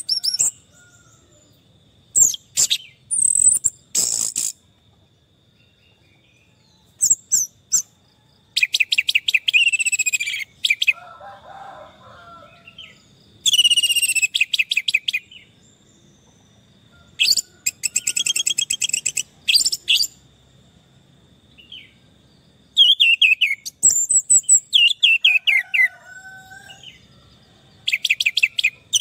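Orange-headed thrush singing: bursts of fast, high repeated notes and trills, each a second or two long, broken by short pauses, over a faint steady high tone.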